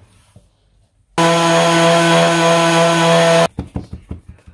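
A power tool running on wood for about two seconds, a steady pitched motor hum that starts and stops abruptly, followed by a few short rubbing strokes. The work is cutting and fitting wooden plugs to cover screw heads in skirting board.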